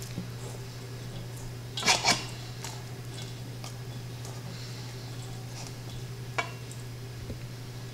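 Stainless steel mixing bowls clinking and knocking as battered lobster pieces are dredged by hand in a dry shredded coating. There are two sharp clinks close together about two seconds in, a lighter one near six and a half seconds and faint rustling ticks, over a steady low hum.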